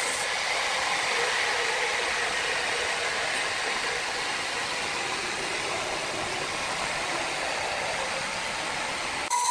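Sawmill machinery running with a steady, even whir and faint humming tones; it cuts off abruptly just before the end.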